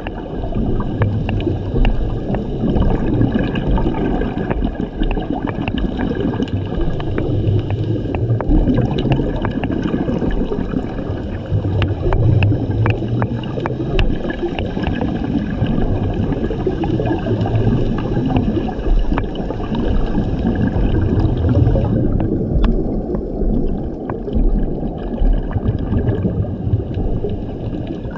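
Scuba regulator heard underwater: breathing through the second stage, with exhaled bubbles gurgling out in swells every few seconds, and scattered sharp clicks over the steady water noise.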